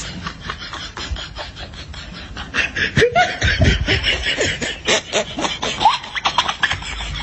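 The 'Chinese laugh' meme sound effect: a person laughing in quick, rapid pulses that turn into louder cackles about two and a half seconds in, with pitch sliding up and down between bursts.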